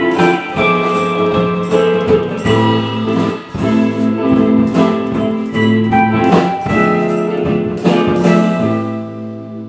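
A band playing a song, led by plucked guitar over regular percussive strikes. About eight and a half seconds in the strikes stop and a chord is left ringing and slowly fading.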